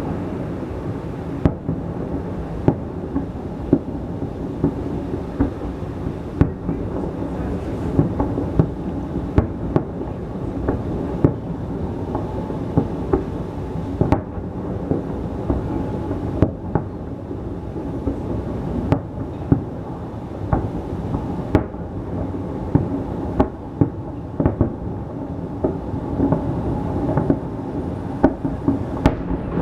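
Fireworks display: a steady low rumble of booms with many sharp bangs going off irregularly, often one to a few a second.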